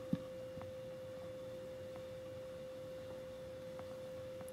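A faint, steady high-pitched tone held at one unchanging pitch, with a soft tap just after the start.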